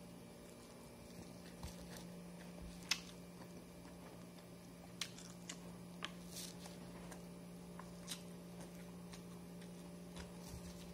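Faint, irregular small clicks and taps, the sharpest about three seconds in, over a steady low hum.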